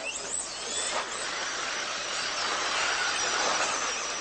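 Electric 1/10-scale RC stadium trucks racing on a dirt track: a hiss of high-pitched motor and gear whine with tyre noise, swelling a little past the middle as the pack comes closer.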